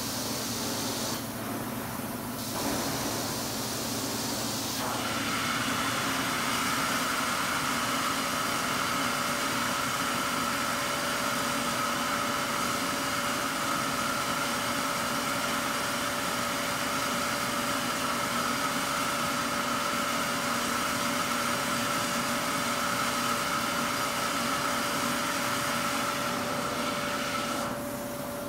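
Hot-water carpet extraction machine's vacuum pulling air through the hose and floor wand: a steady airy rush with a steady whine in it. The high part of the sound thins briefly about a second in and again near the end.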